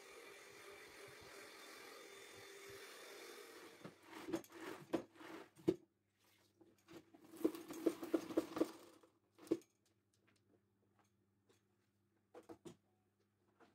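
Handheld vacuum cleaner running steadily with a motor hum, cutting off about four seconds in. A run of knocks and clatters follows, with a few more clicks near the end.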